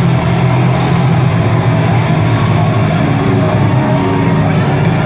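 Rock band playing live with electric guitars, bass guitar and drums: a loud, steady instrumental passage with no singing.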